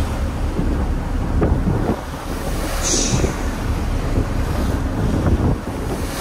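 Strong wind buffeting the microphone over the rush of rough sea breaking and spraying along a ferry's hull, with a brief sharper hiss about three seconds in.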